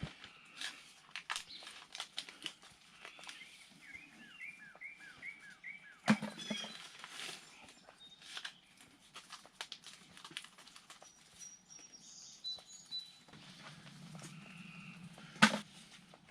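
Quiet outdoor farm ambience with small birds chirping, including a quick run of repeated chirps a few seconds in and a few high whistles later. Scattered sharp clicks and taps run through it, the loudest near the end.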